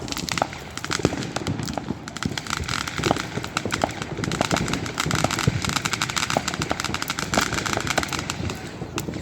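Fireworks crackling: a dense, rapid run of small pops that thickens in the middle and thins out near the end.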